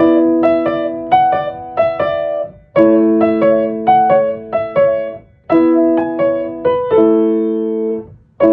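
Solo piano music: a slow, gentle piece with held chords under a simple repeating melody, in short phrases that each die away before the next begins.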